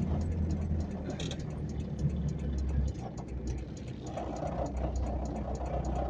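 Car engine running at low speed, heard from inside the cabin as a steady low hum that shifts about three seconds in.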